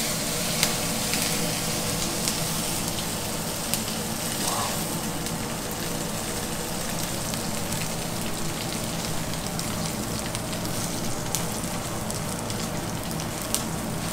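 A huge 96 oz beef T-bone steak searing in a hot pan: a steady sizzle with small crackles and pops.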